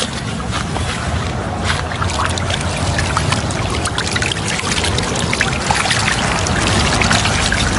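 Water splashing and trickling as a round lift net full of wriggling eel-like fish is hauled from a pond, with a dense patter of small splashes from the thrashing fish.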